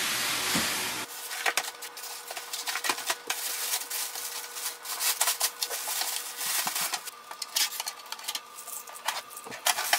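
Clear plastic packaging bag crinkling and rustling in many quick, irregular crackles as hands pull it off a printer, after about a second of steady hiss.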